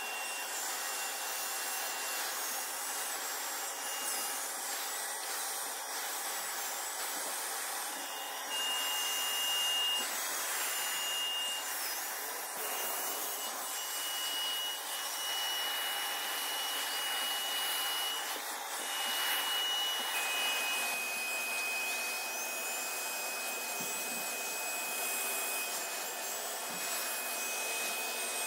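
Bissell portable carpet and upholstery cleaner running steadily, its suction motor giving an even rushing noise with a thin high whine, while its Turbo Brush tool is worked over a fabric sofa. About twenty seconds in, the whine drops slightly in pitch.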